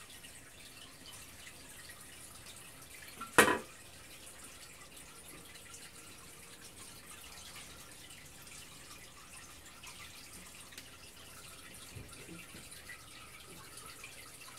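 Aquarium air stone bubbling, a faint steady trickle and splash of bubbles at the water's surface. One sharp knock about three seconds in, and a softer one near the end.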